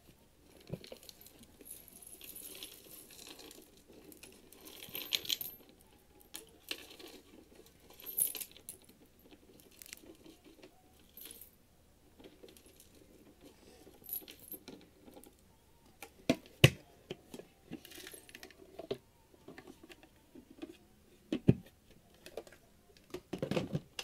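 Debris of rubber bands, seeds and coins tipped out of a Shark Navigator vacuum's dust cup onto a shag rug, rattling and clinking out in several bursts. In the second half, scattered sharp clicks and taps.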